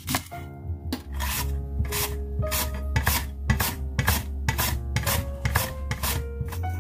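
Onion being sliced on a plastic mandoline slicer: a rasping stroke about twice a second as the onion is pushed across the blade. Light background music plays underneath.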